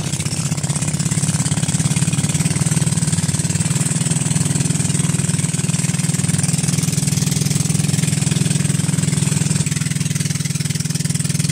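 A motorized bangka's engine running steadily under way, over a continuous rushing hiss of water and wind.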